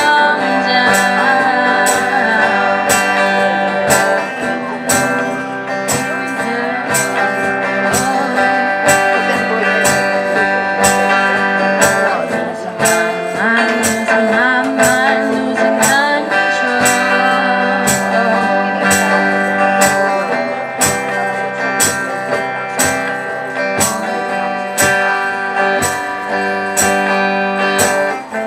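Instrumental passage of a rock song played by a band: guitars holding sustained chords over a steady beat of regular percussion hits.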